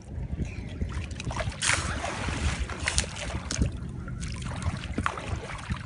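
Sea water rushing and splashing around a small boat, with a steady low rumble of wind on the microphone and a few sharp knocks; one louder surge of rushing water about two seconds in.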